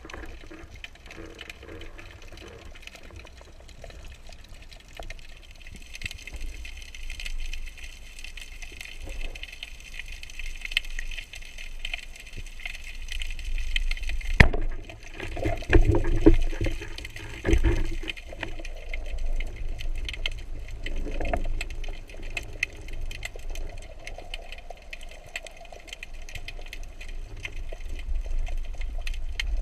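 Underwater ambience during a spearfishing dive: steady water noise with many fine crackling clicks and a low rumble. A few louder knocks come between about 14 and 18 seconds in.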